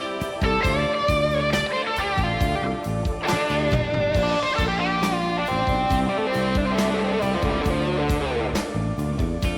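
Live rock band playing an instrumental passage: an electric guitar lead with bending, gliding notes over a steady drum kit beat.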